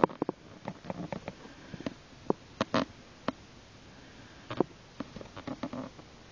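Irregular soft clicks and short rustles close to the microphone, coming one at a time with quiet gaps between them, the loudest right at the start and another about four and a half seconds in.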